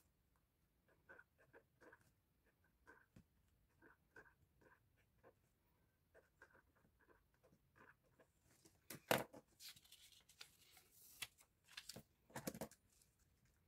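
Faint ballpoint pen writing on paper in short scratchy strokes, then a few louder rustles of handling, at about nine and again at twelve and a half seconds in.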